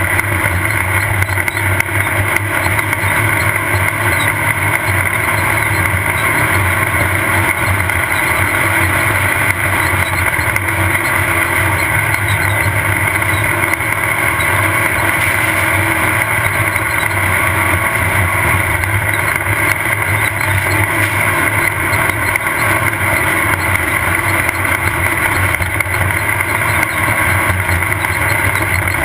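Off-road race car's engine running steadily at speed, with the constant drone and rumble of the car driving over desert terrain, heard from on board.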